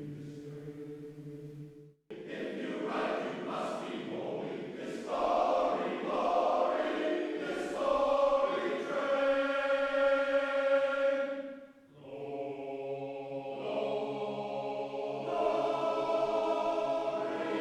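Men's chorus singing a cappella as background music, sustained chords with a brief break about two seconds in and another near twelve seconds.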